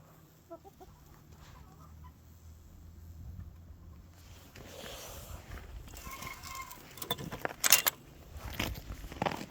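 Gamefowl chickens clucking, with a short held call about six seconds in. Two loud sharp knocks a little after seven seconds.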